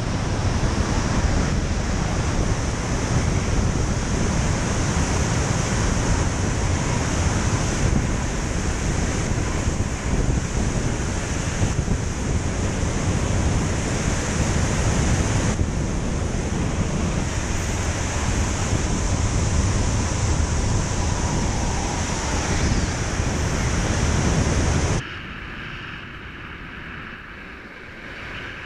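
Wind rushing hard over an action camera's microphone during wingsuit flight: a loud, steady, buffeting rush of air. About 25 seconds in it drops abruptly to a much quieter hiss.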